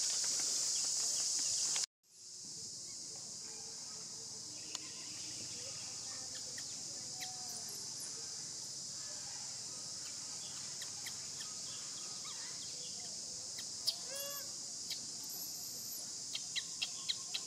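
Steady, high-pitched drone of insects in tropical greenery, cut off for a moment about two seconds in. Later there is a single short animal call and, near the end, a quick run of faint clicks.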